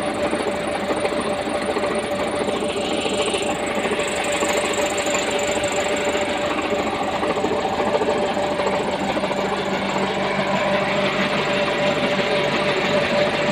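Massey Ferguson 275 tractor's diesel engine running steadily at low revs, turning a PTO-driven belt pulley and a six-inch centrifugal water pump, with a steady hum over a fast, even machine clatter.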